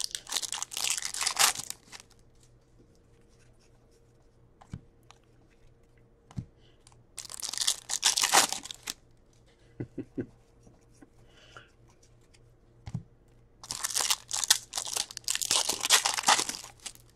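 Upper Deck Series 1 hockey card pack wrapper being torn open and crinkled. It comes in three rounds of crackling tearing: one at the start, one about seven seconds in and a longer one near the end. A few light taps of card handling fall in between.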